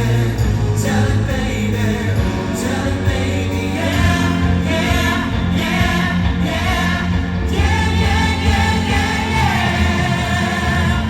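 Live pop band playing with singing over it, the vocal lines shifting as the melody moves.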